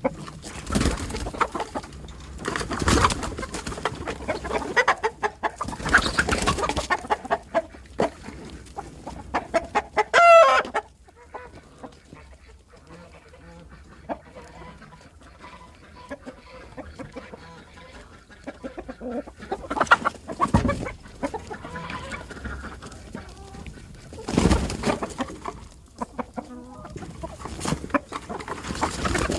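Chicken clucking and squawking, in irregular loud bursts with quieter clucks between. About ten seconds in comes one short shrill cry that rises in pitch, the loudest sound.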